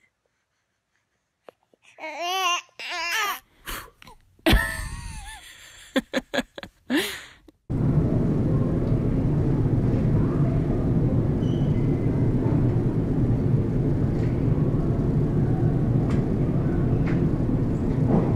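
A baby's voice wavering up and down in pitch for a few seconds, with a sharp click. About eight seconds in, a steady, loud background rumble takes over.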